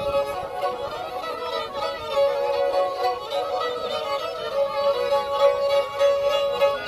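Several Black Sea kemençe fiddles bowed together, playing a fast horon tune over a steady drone note.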